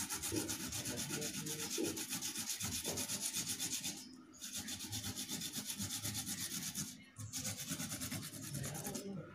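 Kencur (aromatic ginger) root being grated on a hand grater: quick, even rasping strokes, about five a second, stopping briefly twice.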